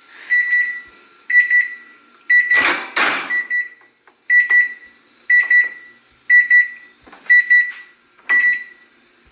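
Microwave oven beeping: a high electronic beep repeating about once a second, then stopping near the end. It is the reminder that food was left inside after the cycle finished. A louder burst of noise comes about two and a half seconds in.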